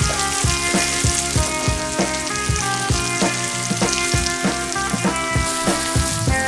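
Salmon fillet sizzling in hot oil in a frying pan as it sears, under background music with a regular beat.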